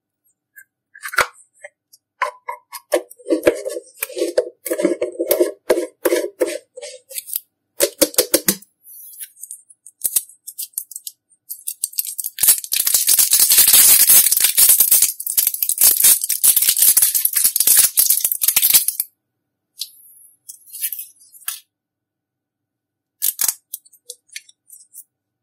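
Slime being squished and stretched by hand: sticky clicks and pops for the first several seconds, then about six seconds of dense crackling, then a few scattered clicks.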